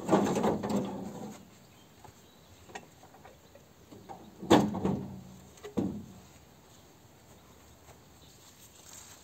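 A few knocks and clattering sounds of hard objects being handled or set down: a cluster at the start, then two sharp knocks around the middle, with quiet between.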